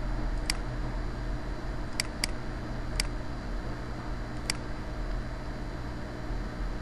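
Computer mouse button clicking five times, once about half a second in, a quick pair around two seconds, once at three seconds and once more near four and a half seconds, over a steady low hum and hiss.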